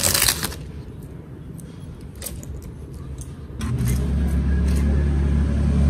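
Crinkling of a thin sheet and clicks of a 3D-printed plastic mold being pulled off a cast pot, then about three and a half seconds in a loud steady low rumble takes over.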